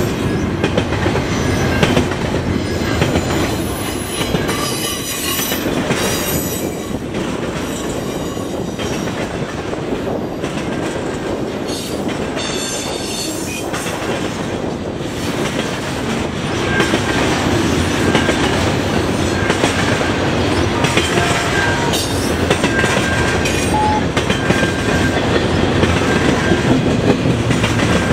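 Double-stack intermodal freight train's well cars rolling past: a steady rumble and clickety-clack of steel wheels on the rails, with short high-pitched wheel squeals that come more often in the second half.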